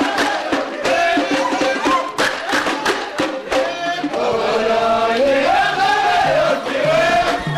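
Amazigh ahwash troupe singing a group chant with rhythmic hand clapping and drum beats. The claps and beats are dense for the first half, then the singing carries on over sparser beats.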